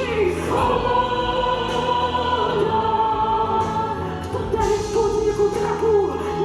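Music: a choir singing long held notes over instrumental backing.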